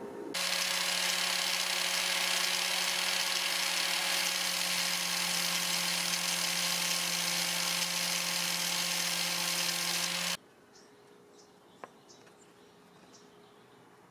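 Homemade tungsten sharpener's diamond disc spinning on its electric motor, a steady hum under a grinding hiss as a TIG tungsten electrode is ground to a point against it. It cuts off suddenly about ten seconds in, leaving faint short chirps.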